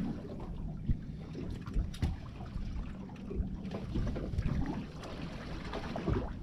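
Steady low rumble and water noise of a small fishing boat drifting at sea, with a few sharp knocks on the boat about one and two seconds in.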